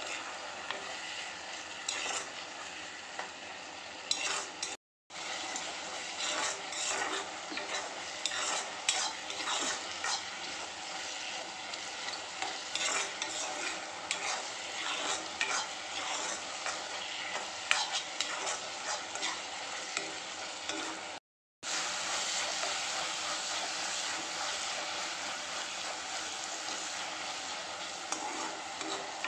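Onion-tomato masala frying in oil in a kadai, sizzling steadily while a steel spoon stirs it, with frequent sharp clinks and scrapes of metal on the pan. The sound drops out to silence twice, briefly: about five seconds in and again about two-thirds of the way through.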